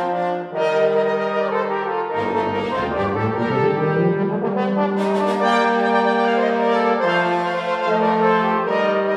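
Brass quintet of two trumpets, French horn, trombone and tuba playing sustained, chord-based concert music, with a brief break about half a second in and low bass notes joining about two seconds in.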